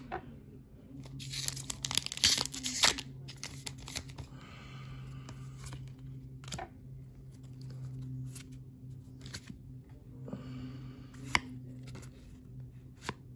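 Foil wrapper of a Japanese Pokémon booster pack torn open by hand, a run of crackling tears about one to three seconds in, followed by softer rustling as the cards are slid out and flipped through.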